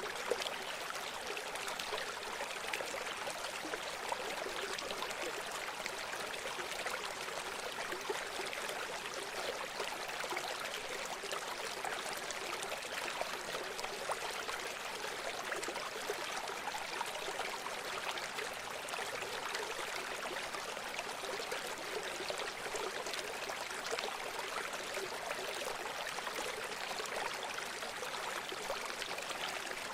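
A river flowing over rocks, a steady babbling rush of water.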